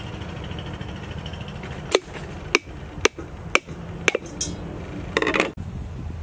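A mature brown coconut being struck around its middle with a heavy knife blade to crack it open: five sharp knocks about half a second apart, then a short rough burst near the end as the shell gives way.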